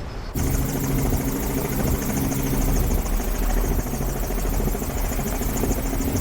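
A steady engine drone with a constant low hum and a wide hiss, starting abruptly about a third of a second in.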